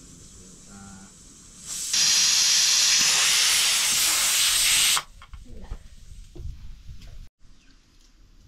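Steam hissing loudly for about three seconds, starting suddenly and cutting off abruptly, followed by faint clatter.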